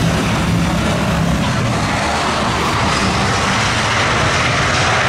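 Boeing 737 jet airliner's engines roaring steadily as it rolls down the runway just after touchdown, growing a little brighter in the second half.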